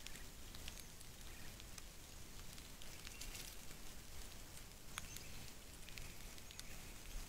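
Faint rustles and scattered soft ticks as a Eurasian blackbird hops and pecks over dry earth and leaf litter, over a low steady outdoor hiss.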